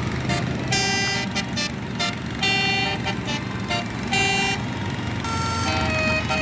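Tour bus telolet horn playing a tune of short, steady, pitched notes over the low rumble of the bus engine. About five seconds in, a different tune at other pitches begins.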